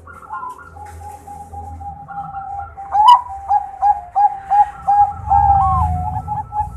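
Zebra dove (Bangkok-type perkutut) singing: a run of short, quick cooing notes starts about three seconds in and builds to a longer drawn-out note near the end.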